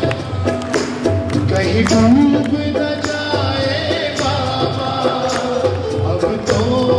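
Live Hindu devotional bhajan music for a kirtan: a singer over held instrumental notes and steady hand-drum and percussion beats.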